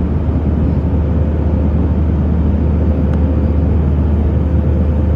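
Steady, loud low drone of airliner cabin noise in flight, the jet engines and airflow running evenly with a faint steady hum above them.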